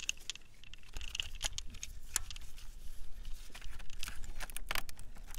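Scattered light clicks and rustling from gloved hands moving among the hoses and wiring around the fuel filter of a diesel engine bay, over a low steady hum.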